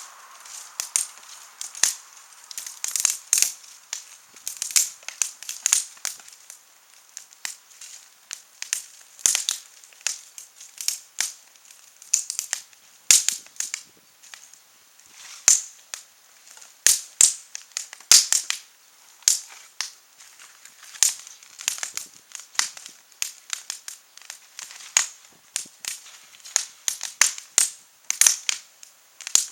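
Wood fire crackling, with irregular sharp pops and snaps, several a second at times.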